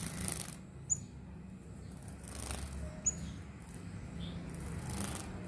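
A fledgling brown-throated sunbird fluttering its wings in three short bursts, with three brief, high chirps in between.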